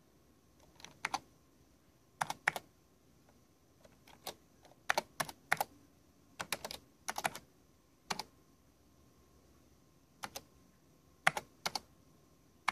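Keys on a Tandy Model 102 portable computer's keyboard being typed, about a dozen keystrokes at an uneven pace: single clacks and quick pairs and runs with pauses between, as a command is entered a character at a time.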